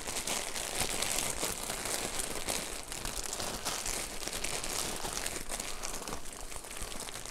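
Plastic packaging crinkling continuously as it is handled, a steady run of small crackles.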